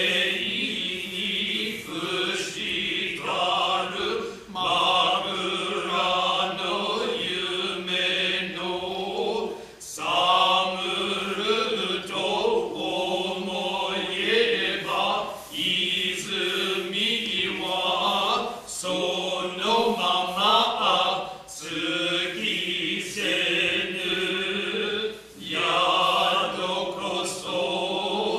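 Noh chorus of several men chanting in unison, in long, drawn-out phrases with short pauses for breath between them.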